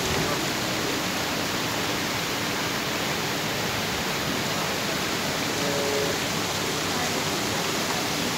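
Muddy runoff water rushing over stones and landslide debris, a steady, even rush of water.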